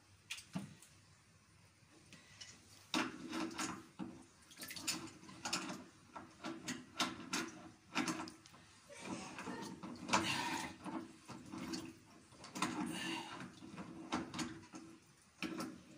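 Brass float valve being screwed by hand on its threaded pipe fitting: a few light clicks, then from about three seconds in a run of repeated grinding, creaking turns of the metal threads, stroke after stroke.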